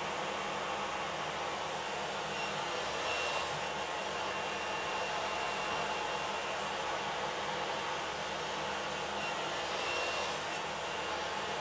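Table saw running steadily with its blade raised low, as a plywood sled is pushed through for repeated shallow passes that widen a groove.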